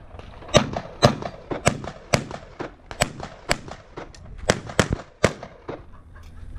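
Handgun shots fired in a fast string during a USPSA stage run: about nine loud, sharp reports, mostly about half a second apart, with two brief breaks between groups of shots.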